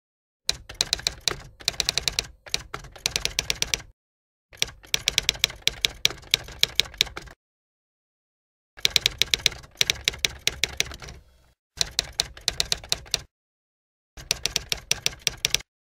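Typewriter typing sound effect: about six runs of rapid key strikes, each lasting one to three seconds, with dead silence between them, the kind of sound that accompanies text typing itself onto a slide.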